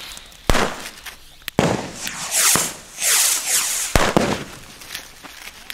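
Firecrackers going off: four sharp bangs within about four seconds, with loud hissing spells between them.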